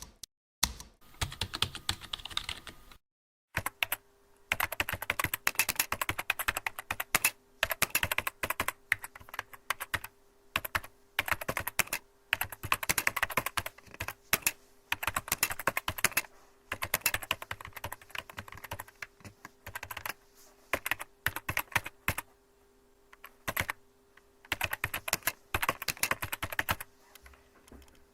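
Typing on a computer keyboard: rapid runs of key clicks lasting a second or two, broken by short pauses. A faint steady hum sits underneath.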